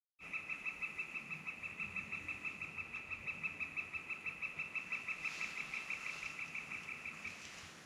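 A bird's long, rapid trill at an even pitch, about seven notes a second, held for some seven seconds before it stops near the end.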